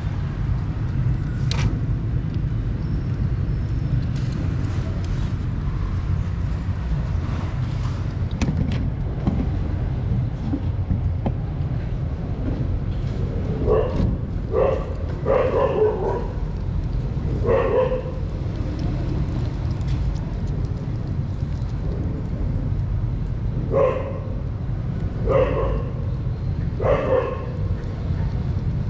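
Short animal calls, about seven, in two groups midway and near the end, over a steady low rumble.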